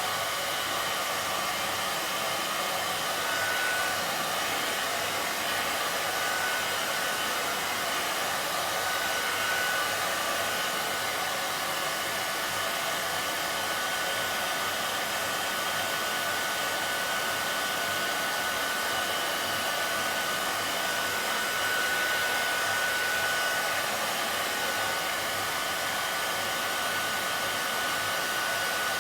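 Handheld hairdryer running steadily on medium heat, a constant rush of air with a faint high whine.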